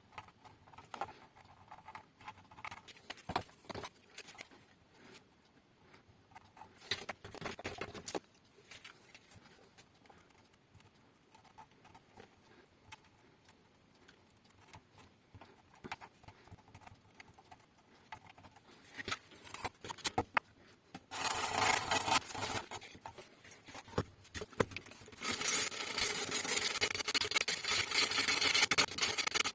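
Scattered small clicks and taps of hand work, then loud rubbing or scraping in two long stretches, starting about two-thirds of the way through and again near the end.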